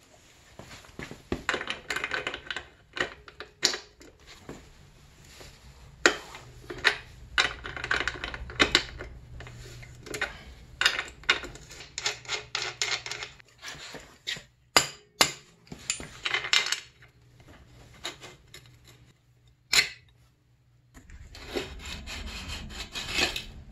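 Hand tools and metal parts clicking, clinking and scraping in short separate bursts as the dirt bike's rear axle and chain adjusters are worked loose, with a low steady hum underneath.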